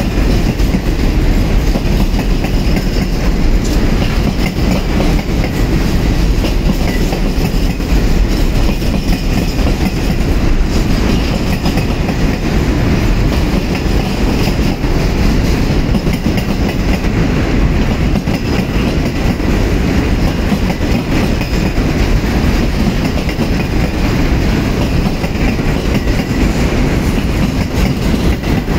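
Container freight train passing, a steady loud rumble of the wagons' wheels running on the rails.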